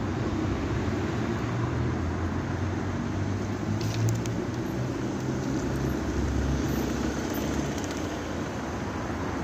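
Steady low rumble of road traffic, with a few faint ticks about four seconds in.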